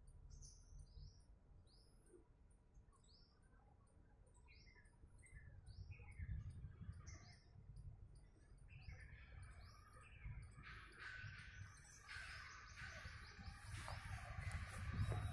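Small birds chirping among trees: short, quick, falling chirps repeated about twice a second over a low rumble. In the second half, a louder crackly noise builds up.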